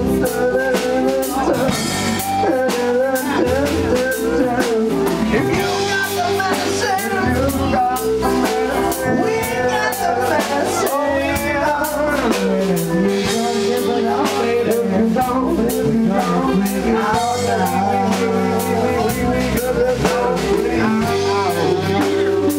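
Live rock band playing a song at full volume: drum kit, guitars, bass and keyboards together, with a wavering melodic lead line over the steady band sound.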